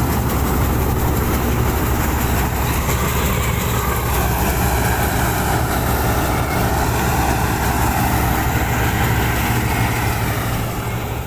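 Combine harvester running steadily while harvesting wheat: a low engine drone under a wide, even rushing noise.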